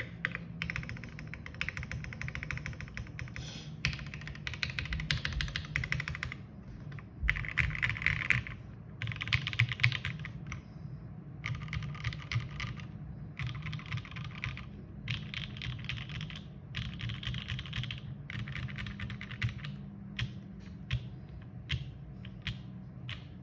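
Smith & Rune Iron180 gasket-mounted mechanical keyboard with lubed OPBlack linear switches on a forged carbon fibre plate and GMK keycaps, typed on in quick runs of keystrokes separated by short pauses, thinning to a few single keystrokes near the end.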